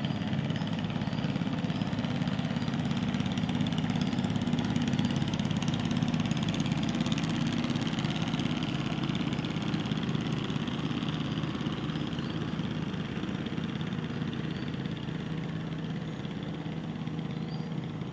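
Small wooden longboat's engine running steadily as the boat passes, growing louder over the first several seconds and slowly fading toward the end.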